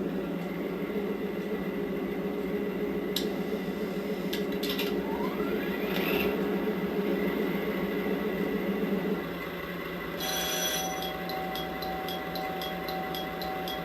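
Recorded DD51 diesel locomotive engine sound played through a TOMIX model-railway Sound Box speaker: a steady low engine drone that drops off about nine seconds in, followed by a steady tone and a run of evenly spaced clicks.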